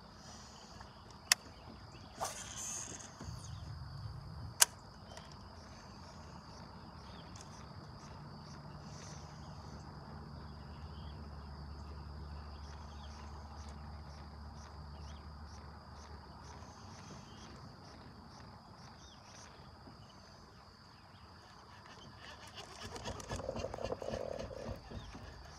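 Quiet pond-side chorus of frogs and insects: a steady high chirring throughout, with two sharp clicks in the first five seconds and a low hum through the middle.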